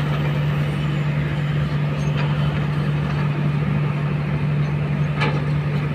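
Kobelco hydraulic excavators' diesel engines running with a steady low hum, working rocky gravel; a sharp knock sounds about five seconds in.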